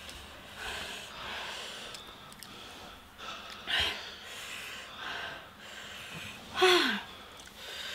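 Heavy, wheezy breathing and sharp breaths through the mouth from people reacting to the burn of extremely spicy noodles. Near the end comes a louder breath with a short vocal sound that falls in pitch.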